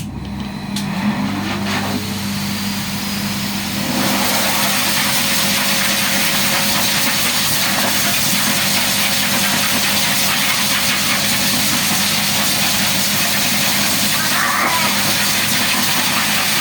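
A small electric motor of a grooming tool starts up, rising in pitch over the first two seconds. It then runs steadily with a hum and a loud hiss, which get louder about four seconds in.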